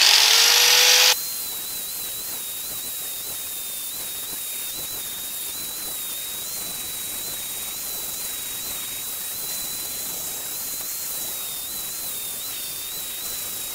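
Angle grinder grinding the raw casting marks off a small cast flywheel. It comes in loud with a whine rising in pitch for about the first second, then runs steadily as a hiss with a thin high whine over it.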